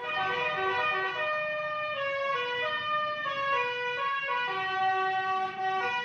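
Tourist bus's telolet horn playing a melody of several notes sounding together, stepping from pitch to pitch every fraction of a second.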